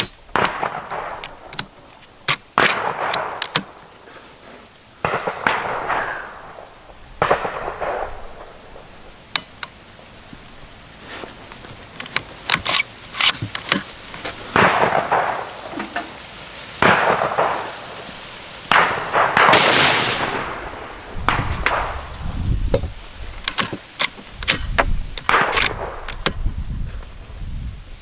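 Gunfire from a Savage 110 Tactical bolt-action rifle in .308: a string of loud shots spaced a few seconds apart, each trailing off in a short echo, among many sharper, smaller cracks and clicks. A low rumble comes in during the last few seconds.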